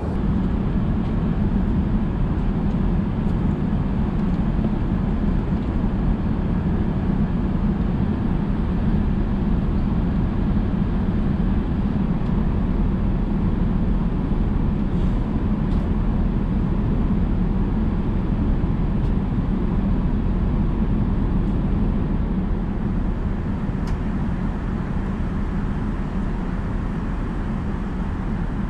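Steady cabin noise inside an Airbus A380 in flight: engine and airflow sound heard from an economy seat, strongest in the low range.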